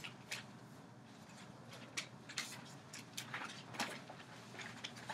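Quiet room tone with a low steady hum, broken by scattered faint clicks, taps and rustles at irregular intervals.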